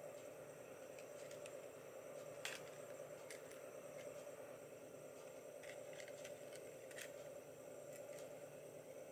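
Faint, scattered clicks and taps of a plastic N-gauge model railway car being handled in the fingers, over a steady low background hum. The clearest click comes about two and a half seconds in.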